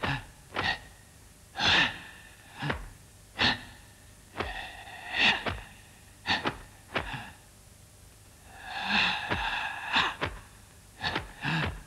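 A kung fu performer's forceful breath sounds: about a dozen sharp exhalations, hisses and short grunts, some cut short and some drawn out over about a second, timed to the strikes and hand movements of a Hung-style form.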